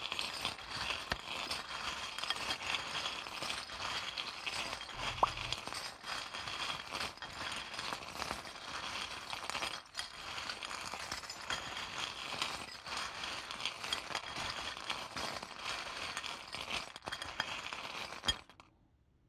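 A handful of small trinket charms, such as a little bell and a heart, being shaken and mixed together for casting: a continuous clinking rattle that stops abruptly about eighteen seconds in, with one louder knock about five seconds in.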